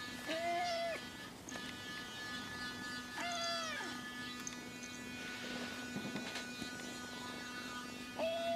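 Silver tabby kitten meowing three times: short, high mews under a second each, a few seconds apart, the last one near the end.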